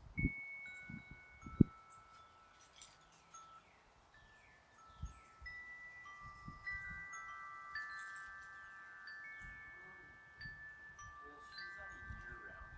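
Wind chimes ringing, several tubes struck in turn so that their clear, sustained tones overlap. Low thumps of wind on the microphone in the first two seconds, one of them sharp, and a few short falling bird chirps.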